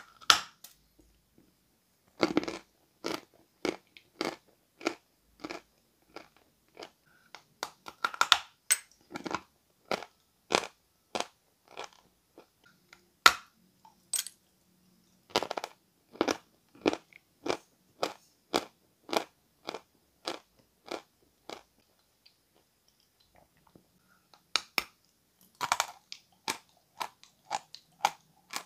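Close-miked biting and chewing of a dry slab of Peschanka chalk: crisp crunches about twice a second, with a few louder snapping bites where a new piece is broken off, and a short pause about two-thirds of the way through.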